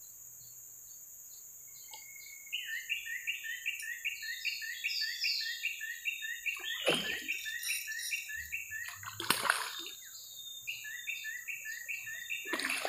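A hooked patin (pangasius catfish) splashes at the surface three times as it is played on a rod. Under it runs a steady string of rapid two-pitch chirps, about four a second, starting about two seconds in.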